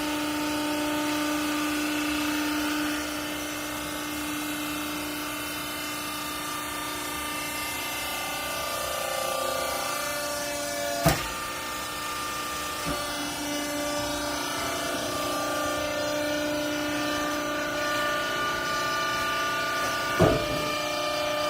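Hydraulic baler's motor and pump running with a steady whine of several pitches. Two sharp knocks come, one about halfway through and one near the end.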